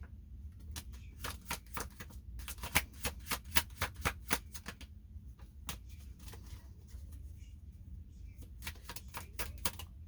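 A deck of reading cards being shuffled by hand: runs of quick, light card clicks that break off and start again, with a longer pause after about five seconds.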